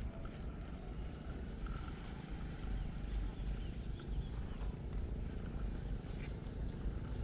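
Insects, crickets among them, chirring steadily in a high, even chorus that pulses briefly near the end, over a constant low rumble.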